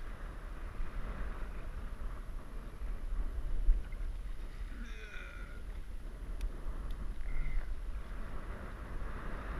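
Wind buffeting the microphone and water slapping the hull of a slowly trolling jetski, a steady low rumble. About five seconds in, a short high-pitched cry.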